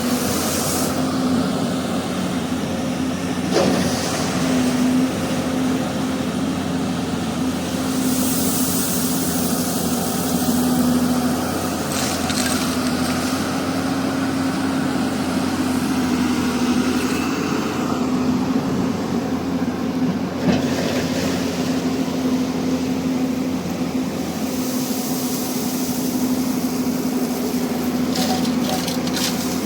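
Hyundai 215 excavator's diesel engine running steadily under load, with a few sharp knocks as the machine works: about 3.5, 12 and 20 seconds in, and several near the end.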